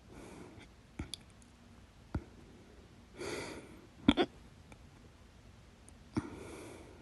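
A person's loud hiccups: four short, sharp hiccups at uneven intervals, the loudest a double hiccup about four seconds in, with breaths drawn between them.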